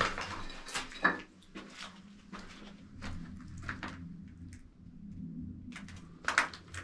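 Footsteps crunching and scraping on rubble and broken debris over a concrete floor inside a small concrete bunker room. They come as irregular crunches and knocks, the sharpest at the start, about a second in, and near the end.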